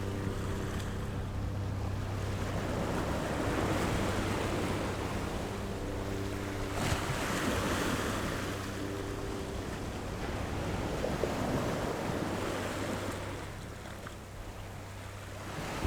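Rushing sound of waves that swells and fades twice, over a steady low hum and soft sustained background tones.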